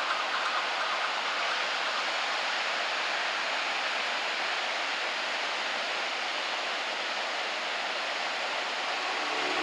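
Steady rushing noise of rough sea surf stirred up by a typhoon, even and without lulls.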